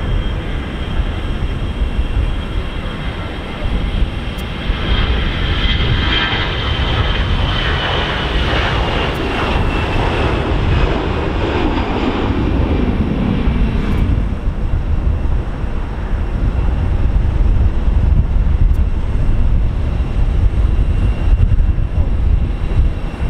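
Twin-engine Airbus A320-family jet airliner at takeoff power, rolling down the runway and lifting off. A steady low rumble runs throughout, and a high engine whine falls in pitch as the jet passes, about halfway through.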